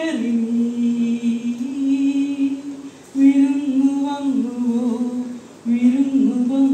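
A man singing unaccompanied into a handheld microphone: long held notes in melodic phrases, with short breaths about three seconds in and again shortly before the end.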